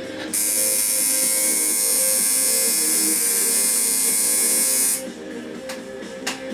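Coil tattoo machine buzzing steadily as it works on skin, starting a moment in and cutting off suddenly about five seconds in.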